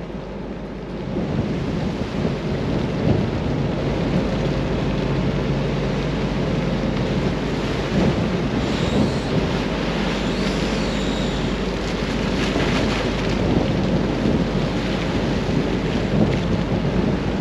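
Steady deck noise of a ship at sea: a low machinery hum under a constant rushing of wind and water.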